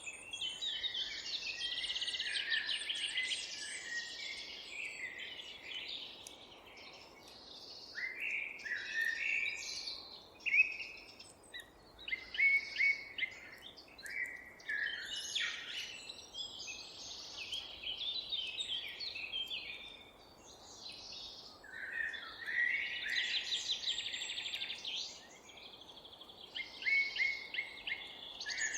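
Several songbirds singing, with overlapping songs and rapid trills and a few short lulls, over a faint steady background hiss.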